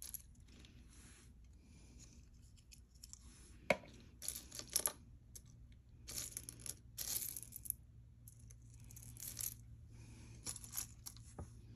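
Costume jewelry being handled and set down: a sharp light clink about four seconds in, then scattered short rustling and scraping sounds.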